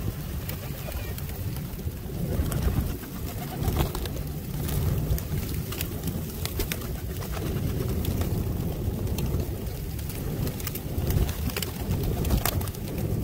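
A flock of feral pigeons cooing continuously while they feed, with many short taps and clicks of beaks pecking at rice on concrete and wings flapping.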